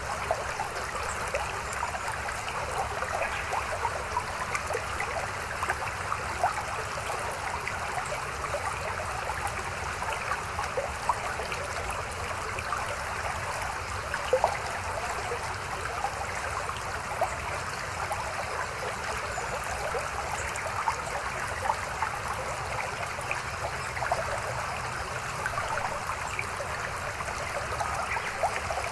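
Mountain stream babbling steadily over rocks, with many small splashes and gurgles.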